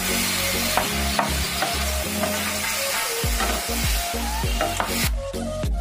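Button mushrooms sizzling in oil in a non-stick kadhai, stirred with a spatula that scrapes and clicks against the pan; they are frying in the water they have given off. The sizzling cuts off about five seconds in, leaving background music with a beat.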